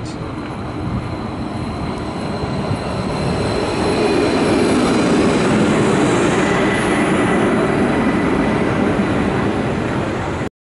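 NSB Stadler Flirt electric train rolling into the platform, its steady rumble growing louder over the first few seconds as the carriages pass, with a faint high tone joining about six seconds in. The sound cuts off suddenly near the end.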